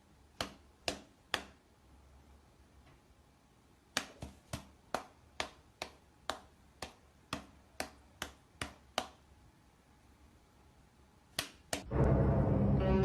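Sharp clicks or taps: three about half a second apart, then a steady run of about a dozen at roughly two a second, then two more close together. Music comes in just before the end.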